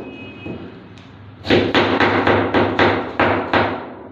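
Kitchen knife chopping a red onion on a plastic cutting board: a run of about eight sharp knocks, about four a second, starting a second and a half in.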